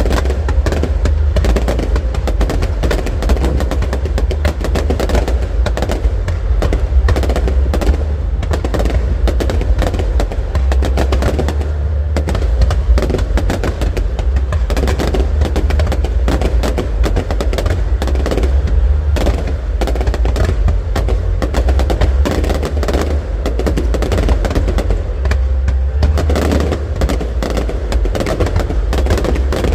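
Fireworks display going off in a rapid, continuous string of bangs and crackles, with a deep rumble underneath.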